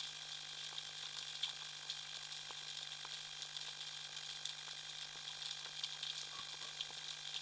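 Underwater crackling heard below the surface over a rocky reef: a steady fizz of countless tiny clicks, typical of snapping shrimp. A faint steady low hum runs beneath it.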